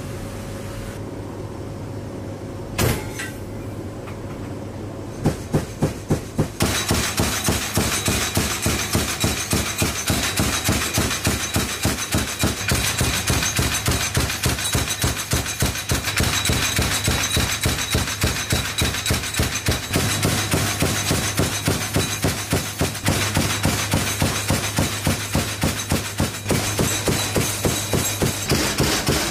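The AC-130J gunship's 30 mm cannon and its linked ammunition feed working, a rapid, even metallic clanking about three to four times a second that starts about five seconds in, over the steady drone of the aircraft cabin. A single knock comes about three seconds in.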